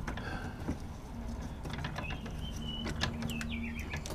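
Steel chain and S-hook being hooked up by hand, giving a series of light metallic clicks and clinks.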